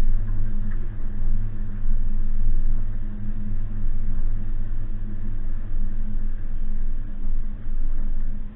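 Suzuki Jimny's engine running steadily while driving off-road, a continuous low drone with rough road and tyre noise over it.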